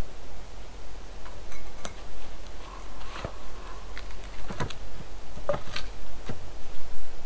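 Scattered dry clicks and knocks of branches and twigs being handled and set down, several in the second half, over a steady background hiss.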